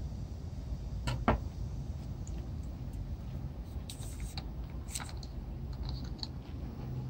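A kitchen knife set down on a bamboo cutting board, a sharp knock about a second in, followed by a few light taps and clicks a few seconds later, over a steady low background rumble.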